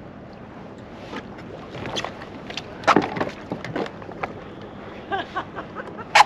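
Irregular knocks and clatter from gear being handled aboard a fishing kayak, loudest about three seconds in and again just before the end, with a quick run of lighter ticks shortly before. Under it is a steady wash of wind and water.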